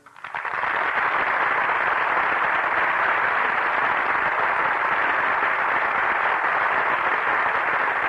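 Studio audience applauding, a dense steady clatter that starts abruptly just after the closing music dies away, heard through a muffled old broadcast recording.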